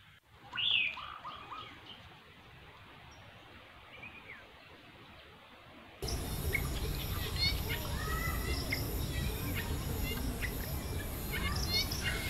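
Wild birds calling at a jungle pond: one loud falling call about a second in, then, from about halfway, a louder, denser chorus of chirps over a steady high insect drone.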